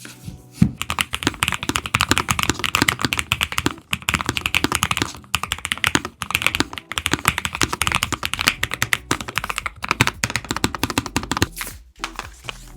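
Fast, continuous typing on a keyboard, many keystrokes a second, with brief pauses about four seconds in and near the end.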